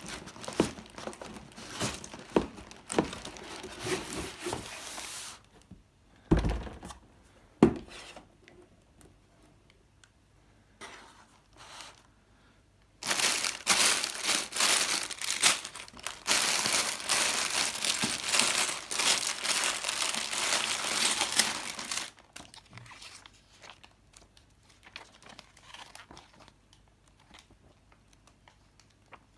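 Plastic packaging of a brick building set being handled: crinkling and rustling, with two sharp thumps around six and seven seconds in, then a long loud stretch of dense crinkling and tearing in the middle.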